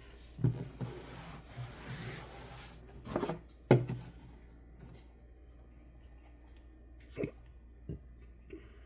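Cardboard jigsaw puzzle pieces being handled on a table: a rustling for the first few seconds, then several sharp taps as pieces are pressed into place, the loudest a little under four seconds in.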